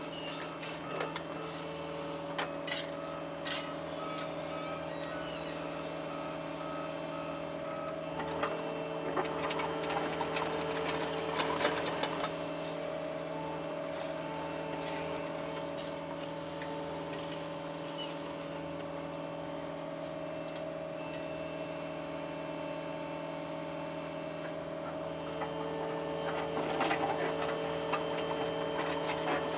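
John Deere 75 excavator running steadily at a constant engine speed while digging, with scattered clanks and bursts of scraping, busiest around ten seconds in and again near the end.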